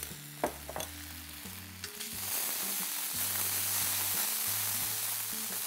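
Browned chopped onions and ginger-garlic paste sizzling in hot oil in a steel wok, stirred with a wooden spatula with a few light scrapes; the sizzle grows louder about two seconds in. This is the paste being fried until its raw smell is cooked off.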